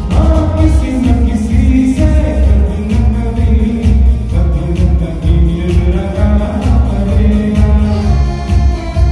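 Live keyboard music from a retro medley of old Hindi film songs, with a steady beat and heavy bass, and a male voice singing over it.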